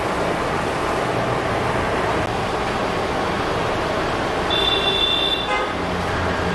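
Steady rushing background noise, with a brief high whine about four and a half seconds in and a few light clicks soon after.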